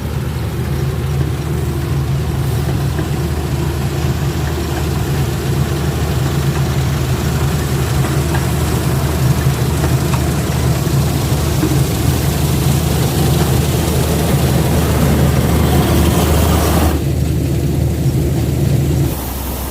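Combine harvester running steadily while cutting and threshing rice, a low engine drone under a dense rushing machine noise. The noise thins out near the end, and the drone drops away just before the end.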